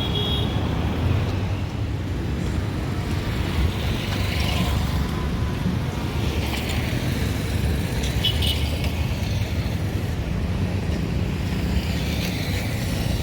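Street ambience with a steady low rumble, and vehicles passing about four and seven seconds in.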